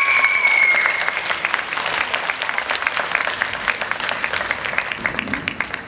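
Audience applauding: a quick patter of many hands clapping. A held high note, the last of the routine music, fades out about a second in.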